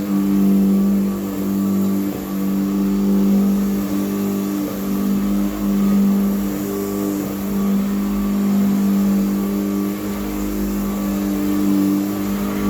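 Early 1950s Hoover Model 28 upright vacuum cleaner running steadily: a loud, even motor hum. The motor's brushes are a little noisier than normal because of a worn commutator that is no longer flat.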